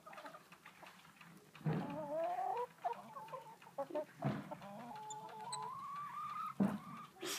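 Hens calling, with drawn-out calls that glide upward in pitch, broken by a few dull knocks.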